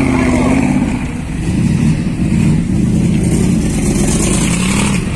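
Eleanor-style 1967 Ford Mustang fastback's engine running loud through its side-exit exhausts, its pitch rising and falling a little with the throttle.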